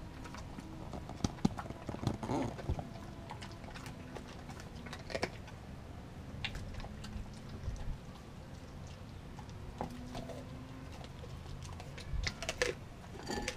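A large dog (kelpie, German Shepherd and wolf mix) chewing raw bone-in chicken: irregular wet crunches and sharp clicks of teeth on meat and bone, with a louder cluster of crunches near the end.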